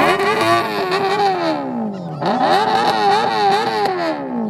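Car engine revved hard twice. Each time it leaps to high revs and bounces rapidly on the rev limiter for a second or more, then drops away.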